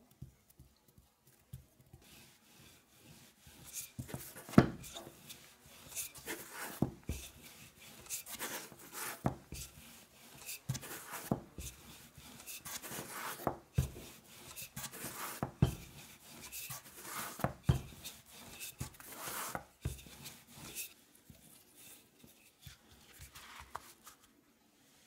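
Wooden rolling pin rolling out shortcrust pastry dough on a silicone baking mat: repeated rubbing strokes, with a sharper knock about every two seconds, starting a couple of seconds in and quieter near the end.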